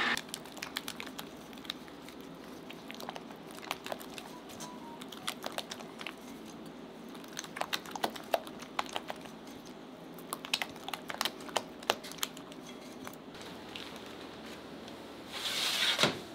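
Scattered light clicks and crinkling of things being handled, irregular throughout, with a short hiss about a second before the end.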